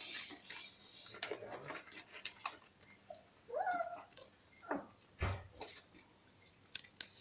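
Small puppies whimpering: a rising-and-falling whimper about three and a half seconds in and a falling whine just before five seconds. Scattered scratching and rustling go on throughout, with a dull thump a little after five seconds.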